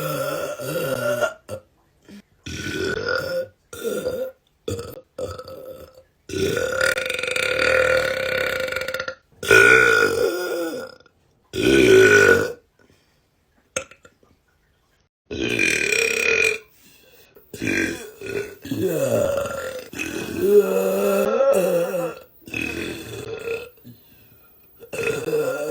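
A young woman's loud belches, one after another, each cut off suddenly by the next. Several are drawn out for a second or more, with a pitched tone that wavers.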